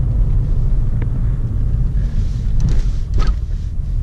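Low, steady rumble of a car driving on a rough, potholed road, with a few light knocks.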